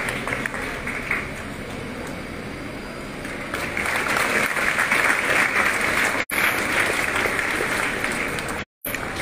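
Audience applauding in a hall, a dense patter of clapping that swells about three and a half seconds in. The recording cuts out briefly twice near the end.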